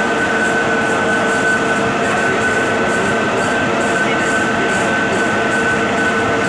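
Centre lathe running, its headstock giving a steady whine over a constant mechanical rumble, while the tool takes a facing cut on the end of a workpiece turning in the chuck.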